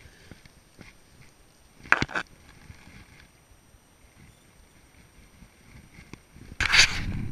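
Water lapping quietly against a small fishing boat, with a couple of sharp knocks about two seconds in and a loud, rumbling rush near the end.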